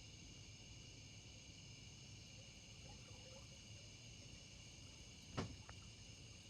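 Faint, steady chorus of insects, several high tones held evenly throughout, with a single sharp knock about five seconds in.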